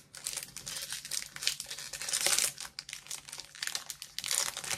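Foil wrapper of a Pokémon TCG booster pack crinkling and tearing as it is opened, a run of quick crackles and rustles that is loudest about two seconds in and again near the end.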